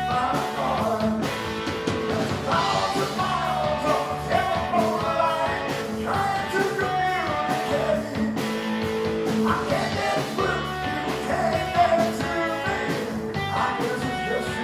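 Live rock band playing a guitar-led song, with a bending lead melody over the band.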